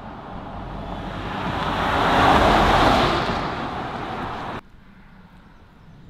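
A vehicle passing on the road: its tyre and engine noise swells to a peak about two and a half seconds in and fades, then cuts off abruptly, leaving much quieter background.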